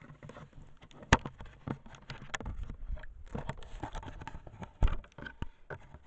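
Handling noise on a trail camera's built-in microphone as the camera is taken down and carried: irregular rustling, scraping and clicks, with sharp knocks against the housing about a second in and again near the five-second mark.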